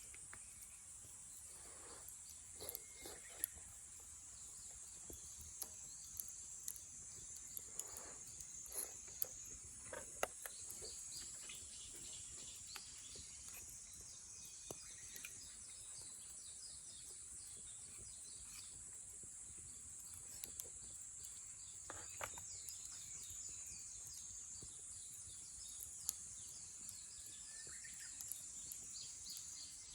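Steady, high insect chorus, such as crickets, with scattered faint clicks and an occasional short bird chirp.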